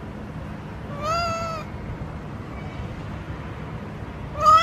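Domestic tabby cat meowing: one drawn-out meow about a second in, and a second, louder meow starting near the end.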